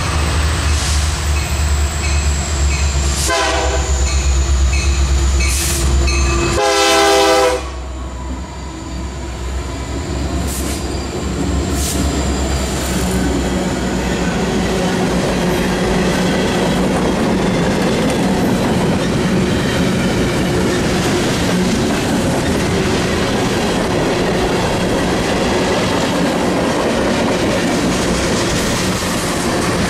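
Diesel freight locomotives approach and pass with a heavy engine rumble, sounding the horn: a short blast about three seconds in and a longer one as they go by. After that, freight cars (boxcars, then tank cars) roll past steadily, with wheels clacking over the rail joints.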